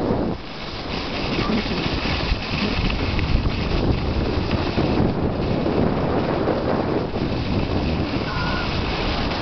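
Wind rushing over the camera microphone during a downhill run on snow, with the steady hiss of sliding over the snow.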